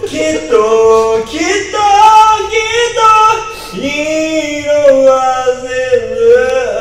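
A man singing into a karaoke microphone, his voice amplified over the backing track: he sings 'kitto, kitto, kitto, kitto' in short repeated phrases, then holds one long note for the last few seconds.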